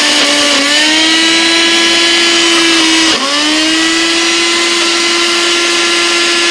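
Personal single-serve blender motor running at high speed, blending a smoothie, with a steady high whine. Its pitch sags and climbs back near the start and again about three seconds in.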